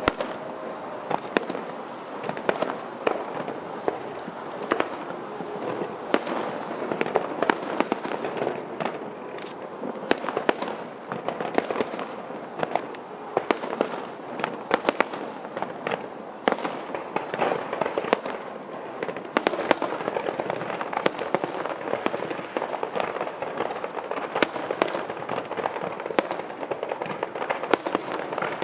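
Aerial fireworks display: shells bursting in an irregular, continuous run of sharp bangs, over a steady crackle from the burning stars.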